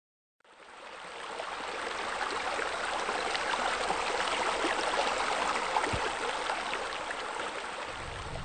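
Running, splashing water, like spillways pouring into a pool, fading in and swelling to a steady rush, with a low rumble joining near the end.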